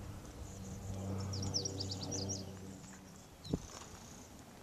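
A bird sings a quick run of high, downward-sliding notes about a second in, over a steady low hum that fades out a little before the end. A single sharp knock comes about three and a half seconds in.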